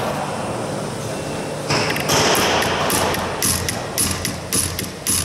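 Hammer blows on the flange of a sheet-metal fuselage former clamped in a bench vise, knocking the metal over the inner curve of the former. The sharp strikes begin about three and a half seconds in and come about two or three a second.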